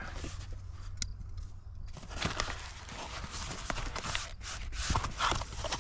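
Box and packaging being opened and handled: irregular rustling, crinkling and tearing of cardboard, tape and bubble wrap, with a sharp click about a second in.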